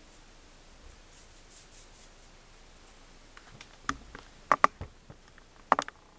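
A few quiet seconds, then several sharp clicks and knocks from a hand-held camera being bumped and repositioned: one about four seconds in, a quick pair half a second later, and another close pair near the end.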